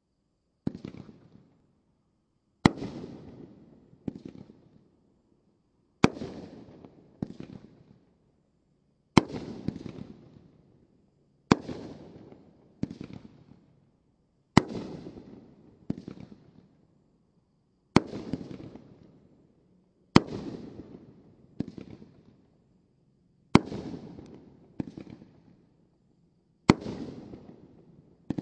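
Brothers Pyrotechnics 'Rocktacular' 12-shot 500 g consumer cake of 2-inch shots firing one shot after another. Each is a sharp bang trailing off into a fading crackle, and they mostly come in pairs of a louder report and a weaker one about a second and a half later, every one and a half to three seconds.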